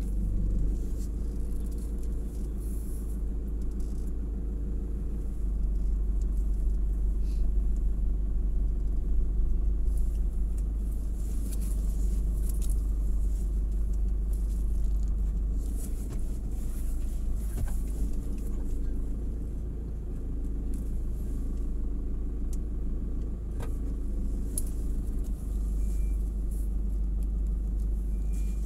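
Steady low rumble with a constant mechanical hum, like a running engine, holding level throughout with a few faint clicks.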